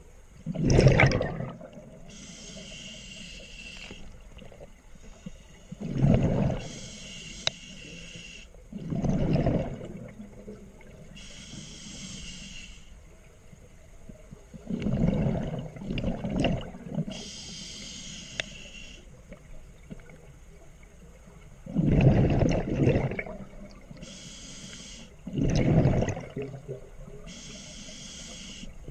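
Scuba diver breathing through a regulator underwater. A high hiss on each inhale alternates with a louder rush of exhaled bubbles, about six breaths in all.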